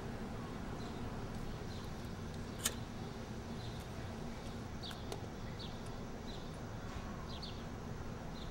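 Outdoor ambience: a steady low rumble with small birds chirping briefly every second or so, and one sharp click about two and a half seconds in.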